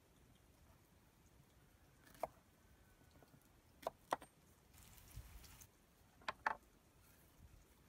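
Ripe plantains being peeled by hand on a wooden cutting board: five sharp taps of knife and fruit against the board, and a short rustle of peel being pulled away about five seconds in.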